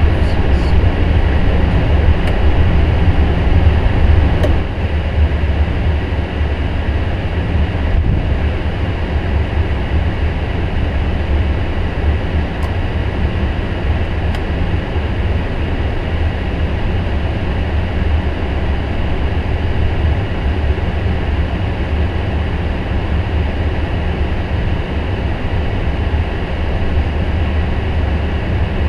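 Steady low rumble inside a Boeing 777-300ER cockpit as the airliner taxis slowly to the gate after landing, with a few faint clicks. The level drops a little about four and a half seconds in.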